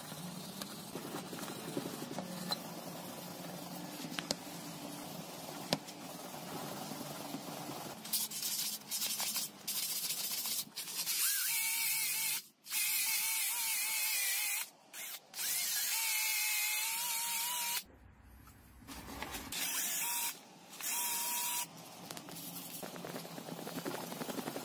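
A wire brush scrubbing an angle grinder's armature. Then a cordless drill spins the armature in several bursts, starting and stopping, with a warbling whine and a loud gritty hiss as sandpaper is held against the commutator.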